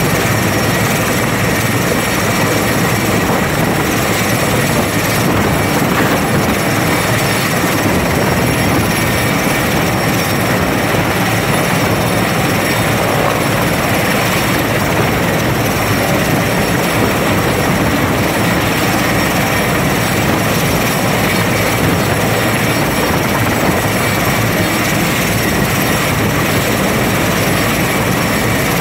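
Six-bladed heavy-lift crane helicopter hovering overhead with a load slung on its cable, its rotors and engines running loud and steady during the lift.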